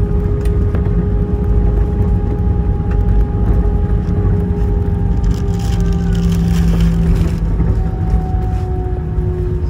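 Airbus A320 cabin noise as the jet slows after landing: a loud low rumble of engines and airframe, with steady engine tones slowly dropping in pitch. A brief hiss comes in from about five to seven seconds in.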